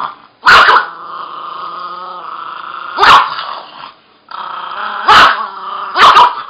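Russian toy terrier growling steadily and snarling, with four sharp barks: one about half a second in, then at about three, five and six seconds. It is a demanding growl-and-bark at the presents she wants opened.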